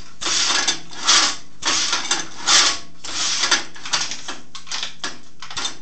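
Tool rest of a Dunlap wood lathe being worked back and forth along the freshly painted bed, metal scraping in a run of short, irregular rasps. It is still tight, and the sliding is wearing the new paint off the track.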